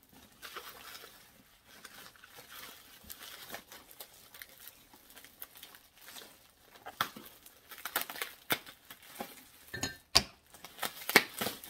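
Packaging being crinkled and torn open by hand as a parcel is unwrapped: a steady rustling, with sharper, louder crackles in the second half.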